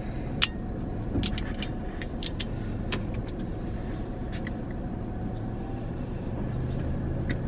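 Car idling, a steady low hum heard from inside the cabin. Over it come a series of short sharp clicks in the first three seconds, and one more near the end, as the cap of a glass juice bottle is twisted open.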